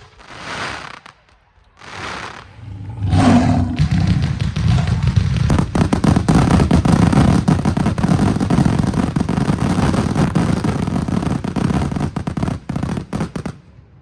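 Fireworks display: three separate rushing bursts in the first few seconds, then a dense barrage of rapid bangs and crackles for about ten seconds that stops abruptly near the end.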